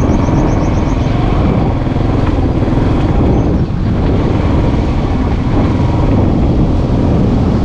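Motorbike running steadily while being ridden, its engine and road noise heard from on the bike.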